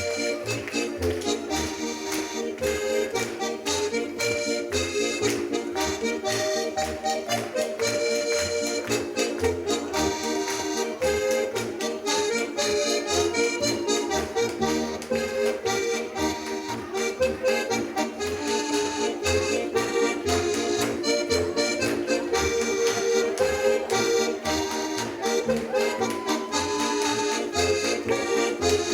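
Accordion playing a lively traditional Alpine dance tune over a regular oom-pah bass, with many sharp slaps and stomps from Schuhplattler dancers striking thighs, shoe soles and the floor.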